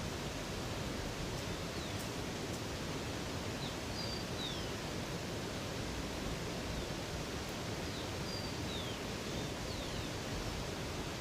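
Steady rush of flowing water from a river or waterfall, with brief high chirps of birds scattered through, several of them near the middle and in the last few seconds.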